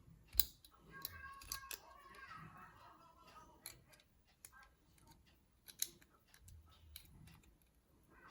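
Small, sharp metal clicks and scraping of a tool prying at the tiny retaining clip on the back of a Sesamee 533 padlock core, with a dozen or so irregular ticks and a thin scrape between about one and three seconds in.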